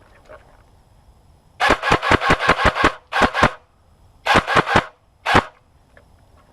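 Airsoft gun firing in bursts of sharp cracks: a quick string of about eight shots, then two, then three, and a single last shot.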